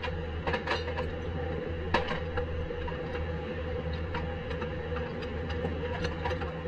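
A steady low hum, with scattered light metal clicks and one sharper knock about two seconds in, from hand tools being worked on a car's rear suspension.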